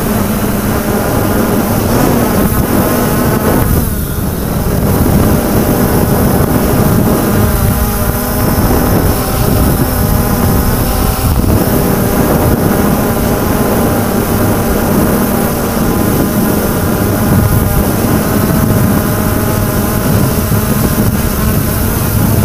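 Quadcopter drone's electric motors and propellers buzzing steadily, heard from the drone's own onboard camera, with a noisy rush of air over the microphone; the pitch wavers a little as the drone moves.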